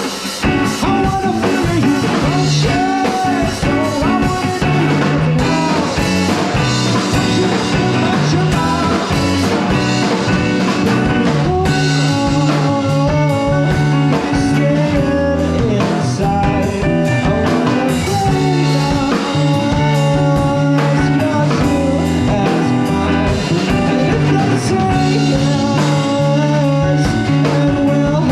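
Live rock band playing loudly: electric guitar, bass and drum kit, with a singer's voice over the top.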